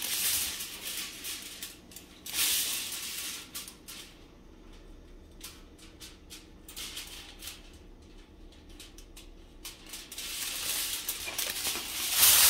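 Aluminium foil crinkling and rustling as it is handled and pulled out to cover a pan, in several spells that grow loudest near the end, with scattered light clicks in the quieter middle.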